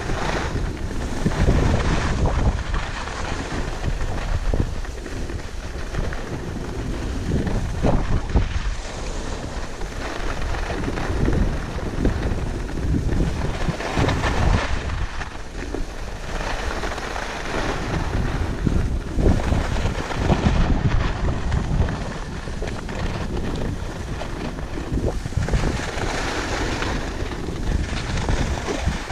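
Wind rushing over a GoPro action camera's microphone while skiing downhill, with skis hissing and scraping over groomed snow. The rumble swells and eases every few seconds.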